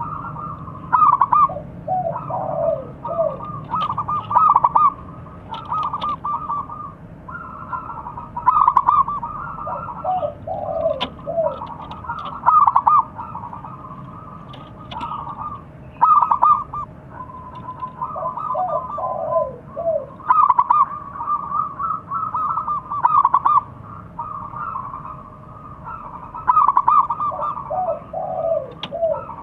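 Zebra dove (perkutut) singing its staccato cooing song, phrase after phrase of quick pulsed coos, with a run of lower falling notes every several seconds.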